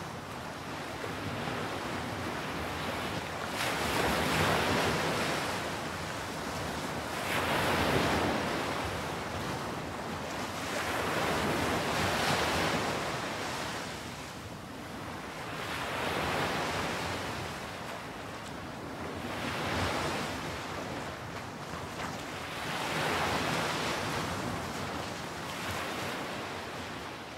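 Ocean waves washing in, a steady surf noise that swells and falls back about every four seconds.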